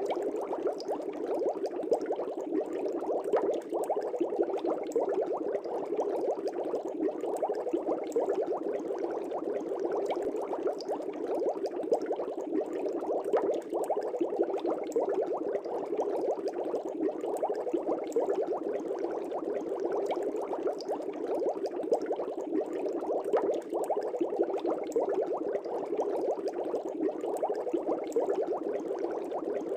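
Air bubbles rising and bursting continuously in a fish tank, a steady dense bubbling with many small pops.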